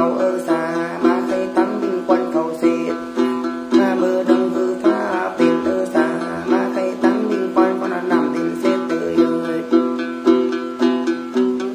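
Đàn tính, a long-necked gourd lute, plucked in a steady repeating rhythm, with a man singing a Then chant over it in long wavering notes.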